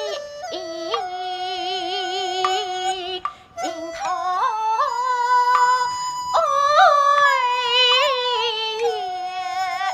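Kunqu opera music: a high melody of long held, wavering notes that step from pitch to pitch, with a short break a little over three seconds in.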